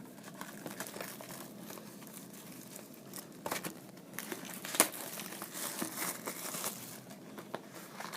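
Wrapping being crinkled and torn by hand as a sealed box of trading card packs is opened: irregular crackling, with a sharp snap a little under five seconds in.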